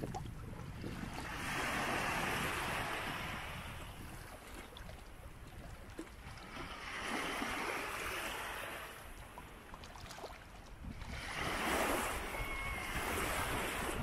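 Sea waves breaking and washing in over a steady low rumble. Three surges come about five seconds apart, each swelling and then fading.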